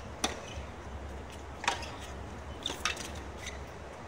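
Tennis ball struck by rackets and bouncing on a hard court: a handful of sharp pops, one or two seconds apart, over a steady low hum.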